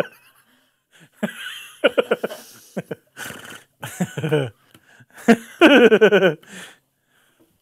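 A man laughing hard in wheezing, breathy bursts with gasps for breath between them. The longest and loudest burst comes near the end.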